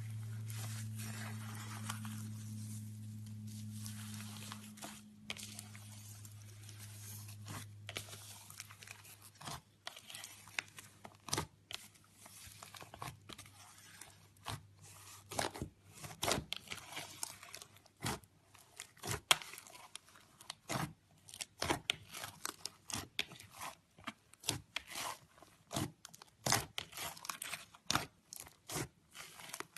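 Slime being worked by hand: it is squeezed, stretched and pulled apart, with sharp crackling pops that come faster and louder in the second half. A low steady hum runs under the first half and fades out.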